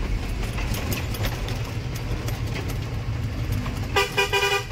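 Truck engine running steadily under way, heard from inside the cab. About four seconds in, a loud multi-tone horn starts sounding in quick repeated blasts that change pitch.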